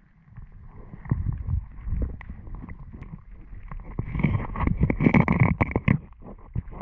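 Muffled underwater noise in a fast-running, silty river: a low rumble of moving water with scattered clicks and knocks, heaviest between about four and six seconds in.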